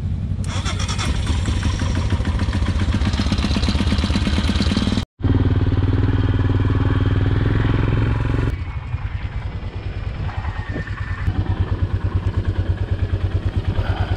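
Royal Enfield Himalayan's 411 cc single-cylinder engine running as the motorcycle is ridden, with a sudden break about five seconds in. From about eight seconds in it runs slower, with a plainly pulsing exhaust beat.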